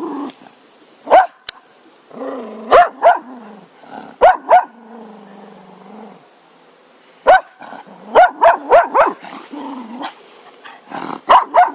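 A cocker spaniel barking in sharp single and paired barks a second or two apart, with a quick run of four barks about eight seconds in and two more near the end.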